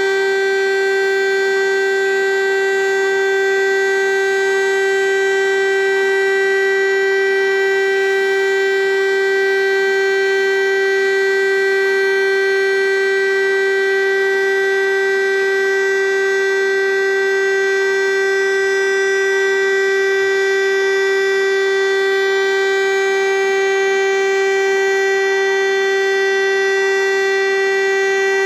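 DS 977 civil defence siren sounding its test signal: one continuous tone held at a constant pitch, with no rise or fall and no break.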